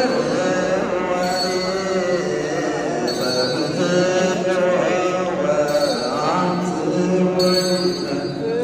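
A group of voices chanting in unison: Ethiopian Orthodox liturgical chant, with metallic jingling from shaken sistrums.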